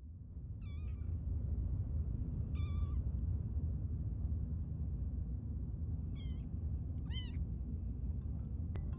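Kittens meowing: four short, high-pitched, wavering mews, over a steady low rumble.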